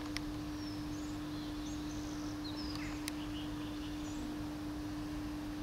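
Street ambience: a constant steady hum under a noisy background, with small birds chirping faintly now and then. Two sharp clicks, one right at the start and one about three seconds in.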